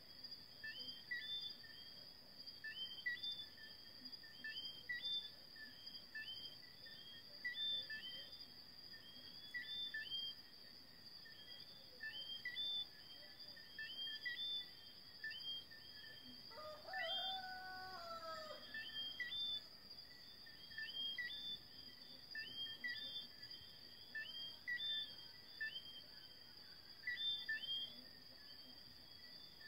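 Whistling frogs calling, each a short two-note chirp with a rising second note, about once a second, over a steady high insect drone. About seventeen seconds in, a rooster crows once for about two seconds, its call falling at the end.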